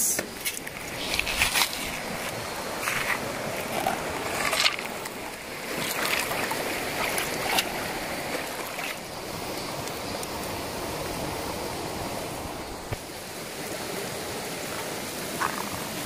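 A mountain stream rushing steadily, with scattered crackles and pops from the small wood campfire burning under the cooking stone.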